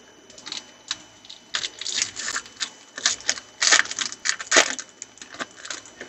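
Foil wrapper of a 2015 Donruss trading-card pack being torn open and crinkled by hand: a run of irregular crackles and crinkles, loudest about two thirds of the way through.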